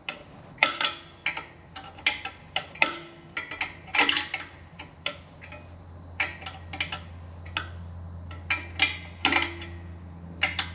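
A steel wrench clicking and clinking irregularly against the metal nut and tubing of an air compressor's unloader pipe fitting as the nut is worked loose, with some clicks ringing briefly. A low steady hum runs underneath.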